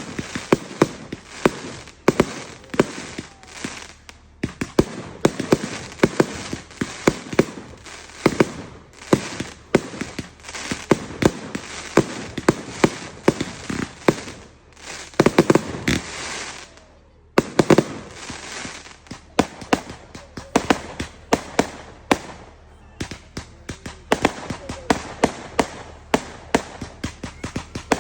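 Fireworks going off in a rapid, continuous string of sharp cracks and bangs, several a second. There are brief lulls about four seconds in and again around two-thirds of the way through.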